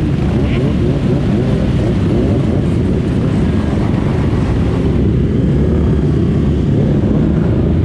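A pack of motorcycles (dirt bikes, supermotos and minibikes) running and revving together as they pull away, many engine notes rising and overlapping.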